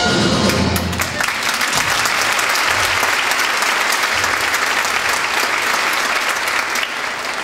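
Theatre audience applauding and cheering steadily at the end of a musical number, with the band's last chord sounding through the first second.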